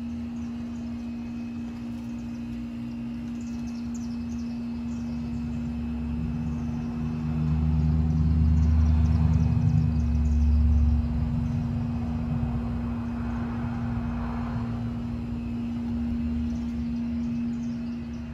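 Evening outdoor ambience: a steady low hum, the rumble of a passing vehicle that swells about halfway through and then fades, and birds chirping in short high notes.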